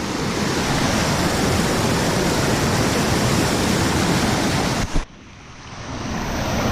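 Rushing water of a waterfall, a loud, steady wash of noise. About five seconds in it cuts off sharply and comes back quieter and dull, then swells up again.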